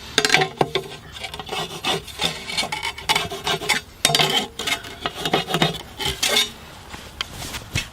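Irregular scratching and rubbing on a porcelain tile as it is marked out for drilling, with scattered sharp clicks and taps.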